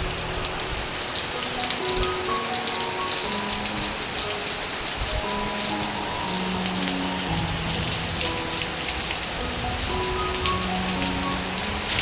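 Heavy rain falling steadily, a dense hiss of drops on surfaces. A simple melody of short, separate notes plays over it.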